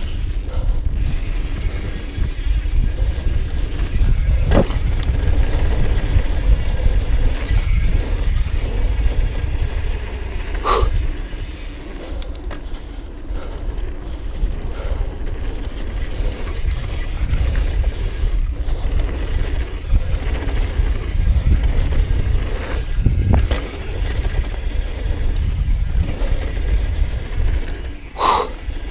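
Mountain bike descending a dirt trail heard from a bike-mounted camera: a steady rumble of tyres on packed dirt and wind on the microphone, with the chain and frame rattling over bumps. A few sharp knocks come through, the plainest at about 11 and 28 seconds in.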